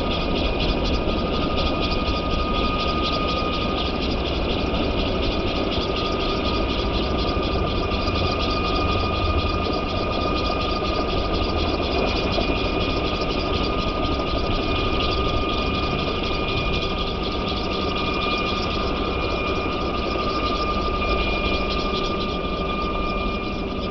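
Scale RC model of a Boeing Vertol CH-113 tandem-rotor helicopter, driven by a single electric motor: a steady whine over the rapid chop of its two rotors. It lifts off into a low hover in the latter part.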